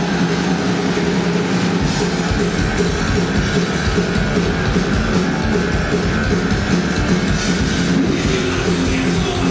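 Live heavy metal band playing loud, with distorted electric guitars and drums; the drums fill out heavier about two seconds in.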